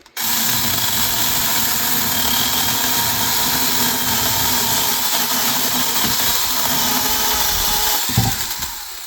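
Cordless battery mini chainsaw running and cutting through a thick branch: the motor and chain start suddenly and run steadily for about eight seconds. Near the end there is a low thump and the saw winds down.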